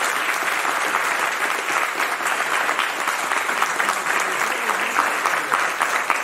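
Audience applauding: many hands clapping in a steady, even patter.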